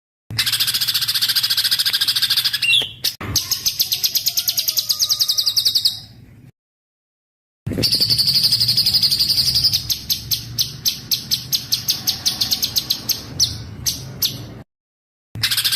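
Small songbird singing loud, rapid runs of evenly repeated high, sharp notes, a dense chattering trill, broken by two brief silent gaps, one near the middle and one near the end.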